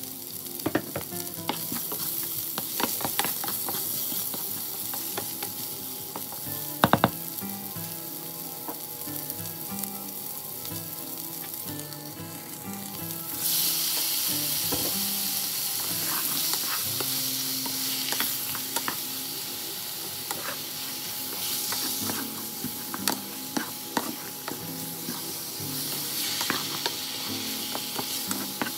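Ginger, garlic and onion sizzling in hot oil in a nonstick pan, with a spatula clicking against the pan as it stirs. About halfway through, raw pork cubes go into the pan and the sizzle turns louder and hissier.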